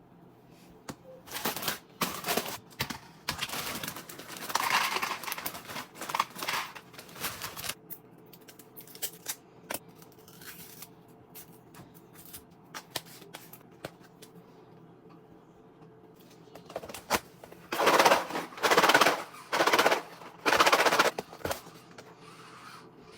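Crinkling plastic bag of Pickle Hot Cheetos being handled and opened, in two spells of loud rustling with scattered small clicks between them.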